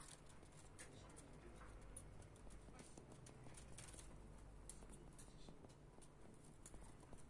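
Faint, irregular high clicks and scratches of small bats crawling over a mosquito net overhead, over a faint steady low hum.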